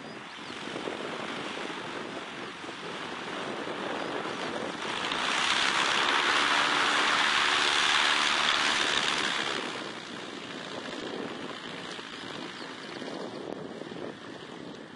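Distant Piper PA-28 Archer II's propeller and four-cylinder Lycoming engine running on approach to land, under a steady rushing noise. The rushing swells much louder for about five seconds in the middle, then drops back.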